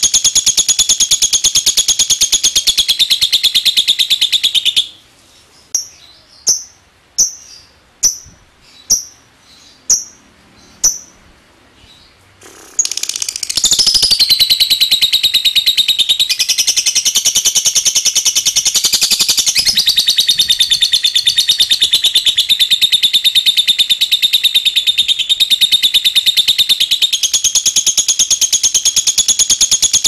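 Fischer's lovebird singing its long 'ngekek': a loud, very rapid, shrill chattering trill that breaks off about five seconds in. About eight short separate chips ('ngetik') follow, roughly two thirds of a second apart, and from about thirteen seconds the unbroken chattering trill resumes.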